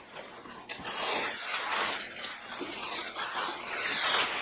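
Packaging rustling and crinkling as a shipping box is opened and its contents handled, an irregular scratchy rustle that starts about a second in.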